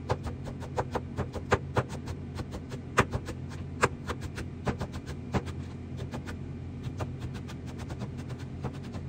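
Irregular clicks and knocks of kitchen utensils during food preparation, closer together in the first half and sparser later, over a steady low hum.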